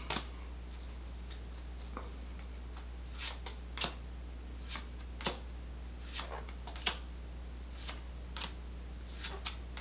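Pokémon trading cards being handled in a stack: soft, brief flicks and slides as cards are moved one at a time from the back to the front, about one every second or so, over a steady low hum.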